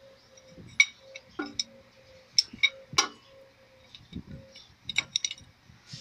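Steel open-end spanner clinking against a Deutz engine's oil pressure switch and the engine block as it is set on and worked to loosen the switch: about eight sharp metallic clicks at uneven intervals.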